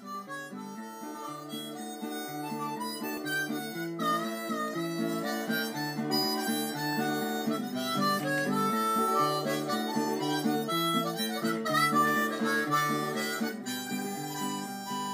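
Intro music: a harmonica melody over a steady, rhythmic chord accompaniment, getting quieter near the end.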